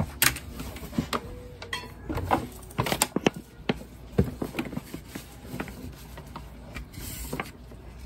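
Irregular clicks, taps and knocks of hands handling a wired mouse's cable and plugging it into the computer, busiest in the first half.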